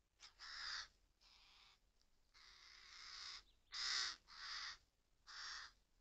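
Hooded crows calling: a run of about six harsh, rasping caws, the third one long and drawn out and the loudest one about four seconds in.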